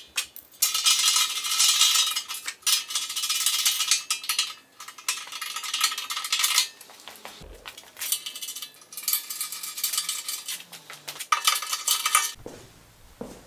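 Small steel parts clinking and rattling against a steel rear bumper as brackets, bolts and a latch are handled and fitted by hand. The rattling comes in stretches broken by short pauses.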